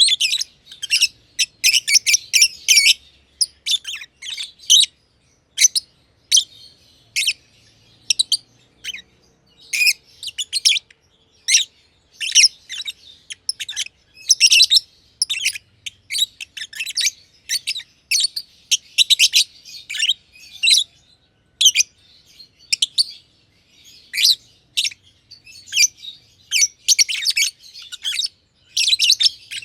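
Black-masked lovebirds (green and pied green personata) chirping: rapid, high-pitched chirps in clusters, broken by short pauses.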